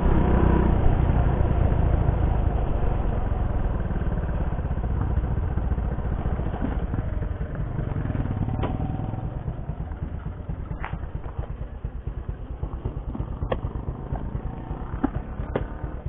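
Motorcycle engine running as the bike rolls to a stop, then idling with an even putter that grows quieter, with a few light clicks in the second half.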